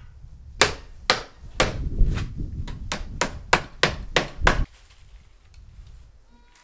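About ten sharp knocks on the wooden frame of a small wooden animal hutch being put together, two to three a second, over a low rumble of handling. The knocking stops abruptly about two-thirds of the way in.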